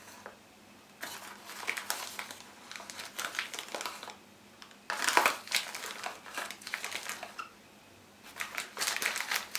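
Foil packet of cocoa powder crinkling as it is handled and spooned from, in several bursts of crackling with short pauses between them.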